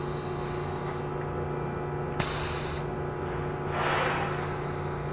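Compressed air hissing from the pneumatic controls of a part-manipulator arm and its gripper as the part is rotated and set down. A high hiss stops about a second in. Just after two seconds a sharp click brings a short burst of air lasting about half a second, and the hiss returns near the end, over a steady low hum.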